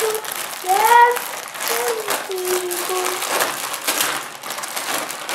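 Crinkling and rustling of a packaging bag as it is opened and its contents pulled out, with a few short vocal sounds in between.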